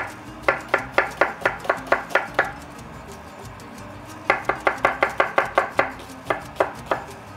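Chef's knife slicing red onion on a thick wooden cutting board: quick, even knocks of the blade against the board, about five a second. The knocks come in two runs with a pause of about two seconds in the middle.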